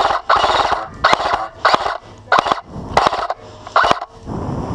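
Gun-mounted airsoft rifle firing a string of short shots or bursts, about seven in a row, roughly one every two-thirds of a second, each a sharp snap with a brief rattle.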